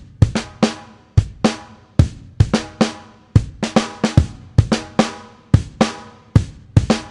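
Music: a drum beat played alone, with kick, snare and hi-hat hits at about three a second.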